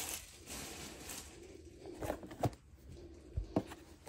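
Faint handling noise from a long cardboard kit box being picked up and turned over in the hands: light rustling with a few short knocks in the second half.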